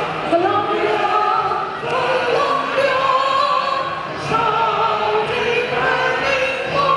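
A large choir of men's and women's voices singing together, holding long notes.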